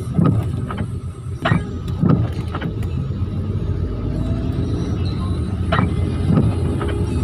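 Steady low rumble of a car in slow traffic in heavy rain, heard from inside the cabin, with a few sharp, irregular knocks.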